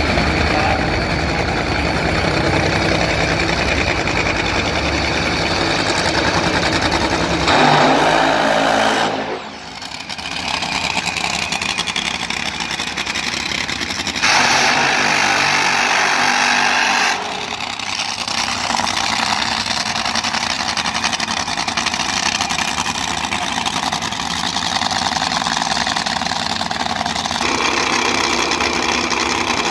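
Supercharged nitro Funny Car engines running loud and rough on the starting line, changing abruptly several times. A louder, harsher stretch lasts about three seconds, starting about 14 seconds in.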